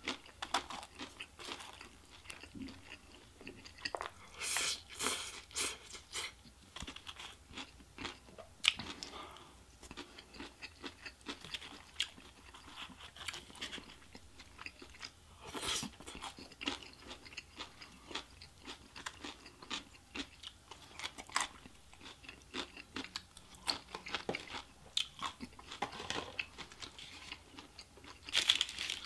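A person chewing food close to the microphone: wet mouth noises and many small crisp crunches. A louder crunch comes near the end as a fried cream cheese rangoon is bitten.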